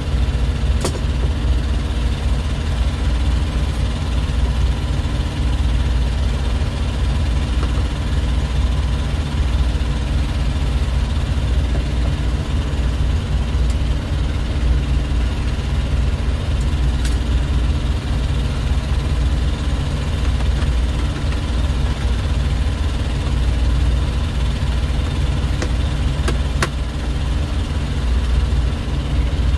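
Semi-truck diesel engine idling with a steady low rumble, with a few light clicks a second in, about halfway and near the end.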